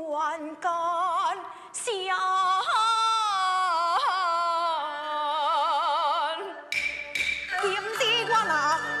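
A woman singing a slow, drawn-out line in Taiwanese opera (gezaixi) style, holding long notes with a wide vibrato. Near the end the accompaniment comes in with a few sharp strikes and a fuller band sound.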